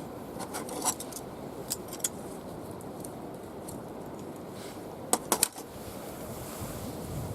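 A few sharp, short clicks over a steady background hiss, three of them in quick succession about five seconds in.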